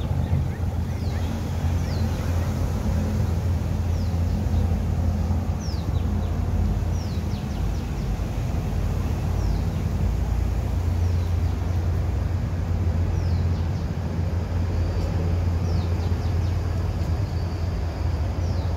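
Steady low rumble of city traffic on an elevated expressway, with birds calling in short, high, falling chirps every second or two.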